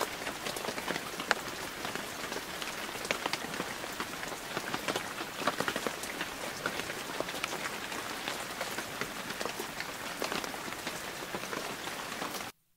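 Rain falling, a dense, irregular spray of small drop hits with no pause; it cuts off suddenly near the end.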